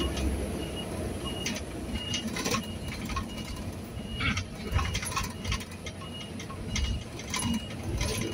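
Vehicle cabin noise while driving on a wet road: a steady low engine and tyre rumble, with scattered clicks and rattles and a short high beep repeating every half second to a second.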